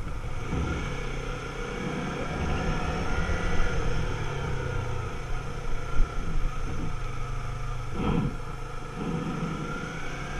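Sport motorcycle's engine running at low speed in town traffic, with rumbling noise over the microphone. There is a brief louder burst about eight seconds in.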